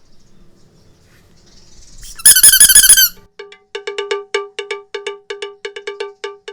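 Rubber balloon squeaking: a high, wobbling squeal lasting about a second, then a rapid, uneven run of short squeaks, about four a second.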